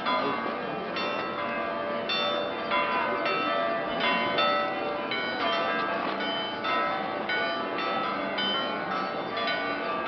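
Several church bells ringing together for noon, struck over and over so that their tones overlap in a continuous, jangling peal.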